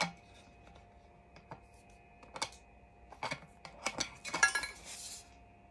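Scattered light plastic clicks and taps as a drinking straw is handled and fitted to a tumbler's lid, with a quick cluster of clicks and a short rustle about four and a half seconds in.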